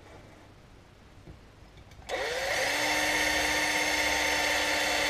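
Cordless drill starting about two seconds in, its motor whine rising quickly then holding steady as a 2.5 mm bit drills out a hole in a metal mirror-holder plate to the tapping size for an M3 thread.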